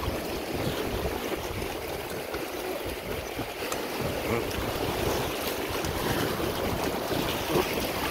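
Rushing, splashing river water around an inflatable raft, with wind buffeting the microphone.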